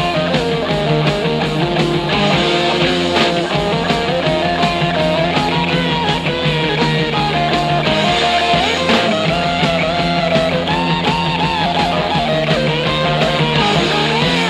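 Rock music with electric guitars and a steady beat.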